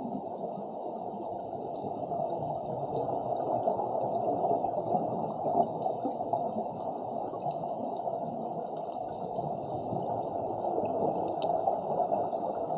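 Underwater ambience heard through a camera's waterproof housing: a steady, muffled rush of water with gurgling from scuba divers' exhaled bubbles.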